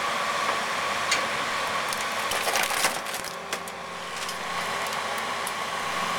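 Mercedes 300D car body being crushed and torn apart by an excavator: sharp cracks and crunches, one about a second in and a cluster a couple of seconds later, over the excavator's steady drone.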